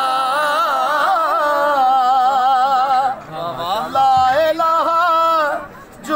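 A man's solo voice chanting a devotional verse in long, wavering held notes, breaking off briefly about three seconds in.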